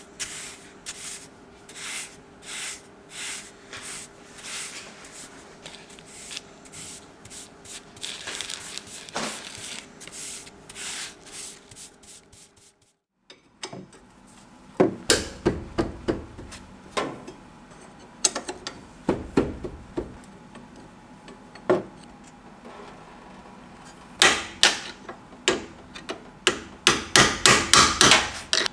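Repeated scraping strokes on metal, about two a second, then a series of sharp metal knocks and hammer blows in quick clusters as rusted front suspension parts are worked loose.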